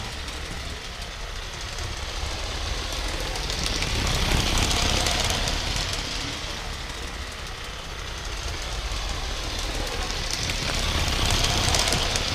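Live-steam garden-scale locomotive running, with rapid chuffing and steam hiss that grow louder as it comes close, about four seconds in and again near the end.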